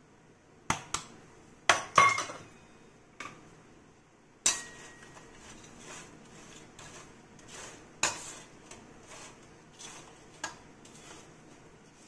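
Steel bowl and spoon clinking against a stainless-steel plate, with several sharp clinks in the first seconds, then a spoon scraping and stirring through crisp fried banana chips with a few more clinks.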